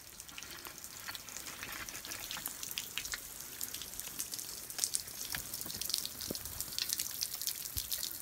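Water dripping off the edge of an overhanging granite boulder: many quick, irregular drips patting on the rock and ground below, growing busier about halfway through.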